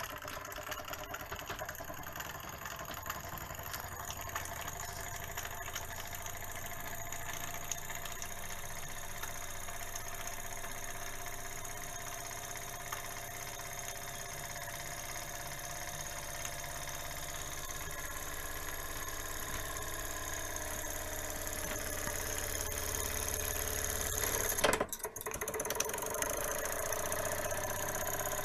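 Jensen 75 toy steam engine running on steam: a rapid, steady chuffing and clatter from the small engine, getting a little louder toward the end, with a brief interruption near the end.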